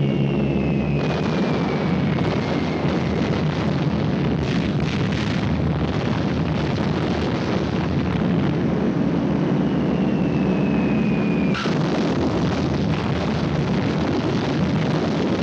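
Falling bomb whistles dropping in pitch, then bomb explosions. One whistle leads into blasts about a second in, and a second whistle descends shortly before a sharp blast about three-quarters of the way through, over a continuous rumble of explosions.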